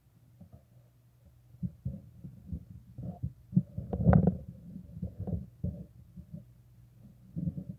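Handling noise on a handheld phone: irregular low thumps and rubbing against the microphone, busiest in the middle, with the loudest knock about four seconds in.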